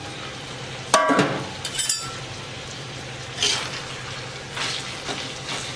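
A flat metal spatula scraping and stirring cauliflower in an iron kadhai, a few separate strokes over a steady low hum. The cauliflower is frying until lightly browned.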